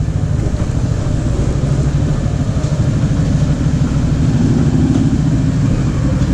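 Motorcycle engine running steadily at low revs as the bike creeps slowly forward, a low engine note with a slight rise in pitch about halfway through.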